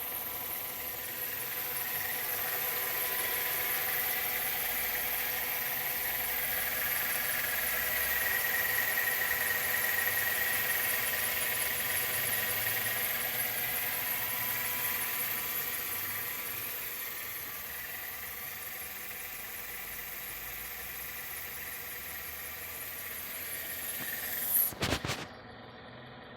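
Mercedes-Benz W211 engine running with a steady high whistle from the drive-belt tensioner roller, which the owner takes for a failing tensioner pulley. The whistle swells in the middle and then fades, and a couple of sharp knocks come near the end.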